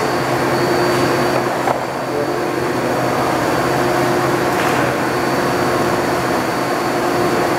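Viper VMC 2100 CNC vertical machining center running under power: a steady mechanical hum with a thin high whine held over it.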